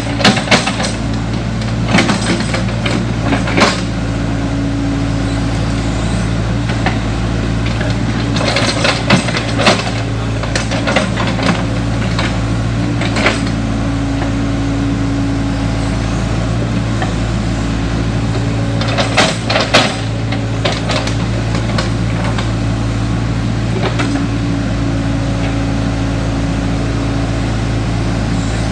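Hydraulic excavator's diesel engine running steadily under digging load, with a drone whose tone swells now and then as the hydraulics work. Sharp clanks and knocks of the bucket and boom come in bunches, the loudest about twenty seconds in.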